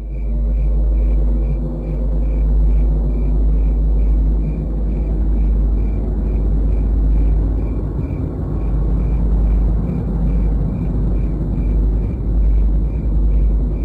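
A loud, deep, steady rumble with a faint high chirp repeating about twice a second over it.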